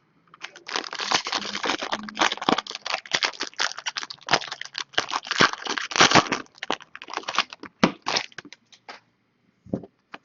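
Sealed trading-card mini box being opened by hand: its packaging crinkles, crackles and tears for about eight seconds, then dies down to a few faint clicks near the end.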